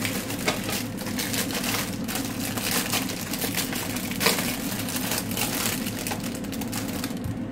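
Thin plastic produce bag crinkling and rustling as it is opened and handled to take out pears, with a sharper crackle about four seconds in. The crinkling stops just before the end.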